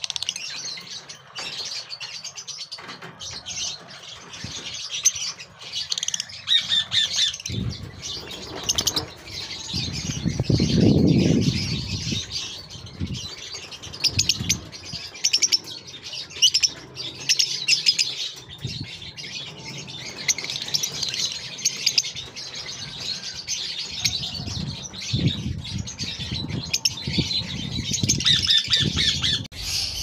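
A flock of caged lovebirds chattering with rapid, high-pitched chirps and squeaks throughout, with a brief low rumble about ten seconds in.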